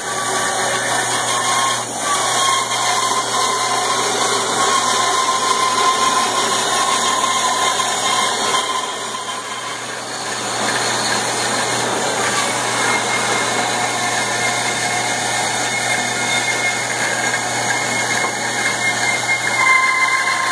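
Homemade band saw running, its blade cutting through a thick wooden board along a marked curve. The motor hum and blade whine are steady, with a short dip in level about halfway through.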